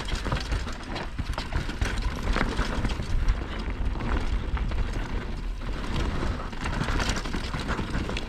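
Mountain bike descending a rough trail at speed: tyres crunching over dirt and rocks while the chain and frame rattle in a dense run of clicks, over a steady low rumble of wind on the microphone.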